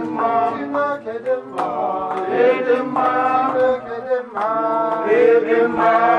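Singing: a slow, chant-like song with long held notes.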